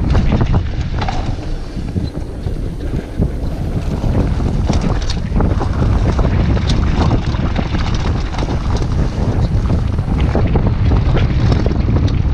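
Mountain bike descending a dirt trail at speed: a steady low rumble of the tyres over the ground with many small clatters and rattles from the bike, under heavy wind buffeting on the microphone.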